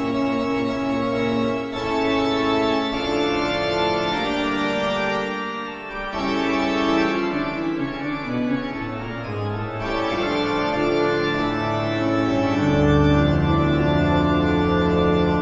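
Eerie horror-style organ music: sustained chords that shift every second or two, with a deep bass note coming in near the end as the loudest part.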